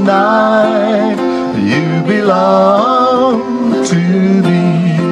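Ukulele strumming under a wordless sung melody of long, wavering held notes.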